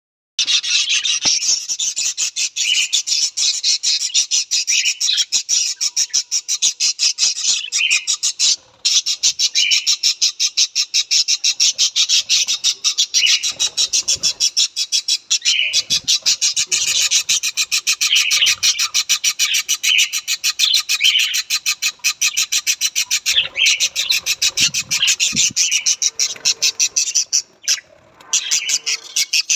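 A flock of budgerigars chattering: a dense, continuous stream of fast chirps and warbles, with brief breaks about nine seconds in and near the end.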